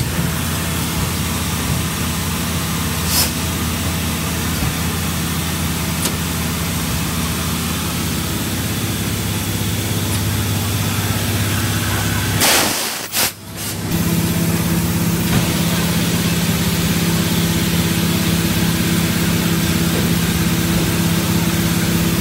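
Pulp tableware production line machinery running with a steady mechanical hum made of several low tones. About twelve and a half seconds in comes a short, loud burst of hiss, and shortly after the hum settles into a steadier, stronger drone.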